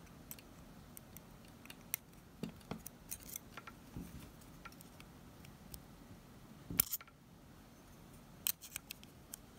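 Light metallic clicks and ticks of small parts and tools being handled as a shim and E-ring are fitted to the burst-fire mechanism of a gas blowback airsoft rifle. There is a sharper click about seven seconds in and a few more near the end.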